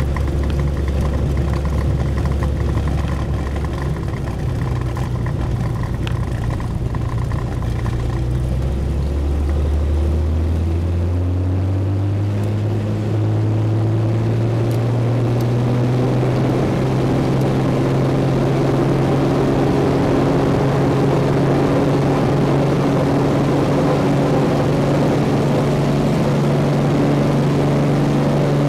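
A Cessna 206's six-cylinder piston engine and propeller, heard from inside the cabin. It runs at a lower steady setting at first, then rises in pitch over several seconds to full takeoff power and holds there through the takeoff roll, with a rush of wind and rolling noise that grows as speed builds.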